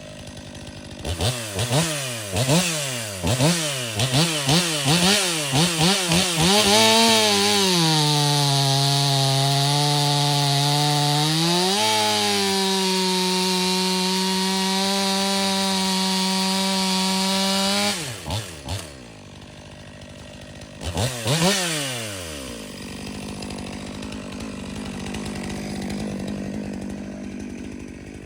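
Stihl fuel-injected chainsaw revved in a quick series of throttle blips, then held at full throttle through a cut in oak, its pitch pulled down under load. About twelve seconds in the pitch climbs and holds steady at full speed with no load, then drops to idle, with one more short rev before it idles on.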